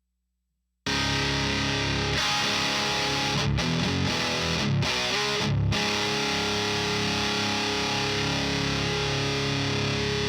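High-gain distorted electric guitar through a Diezel VH4 preamp pedal, a Chapman guitar with DiMarzio D-Activator pickups tuned half step down in drop D. It comes in sharply about a second in with a few chugged chords broken by brief stops, then holds one chord ringing.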